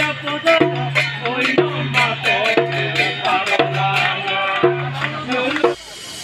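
Rhythmic music with a steady drum and percussion beat, a bass note repeating about once a second, and singing; it cuts off abruptly near the end.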